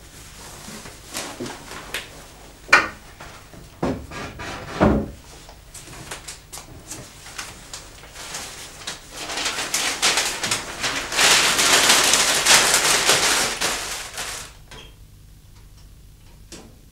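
Someone handling a wooden cupboard of an old kitchen dresser: clicks, knocks and two duller thumps as the door and its contents are moved, then a run of rapid clicks and a steady hiss-like noise lasting about five seconds before it goes quiet near the end.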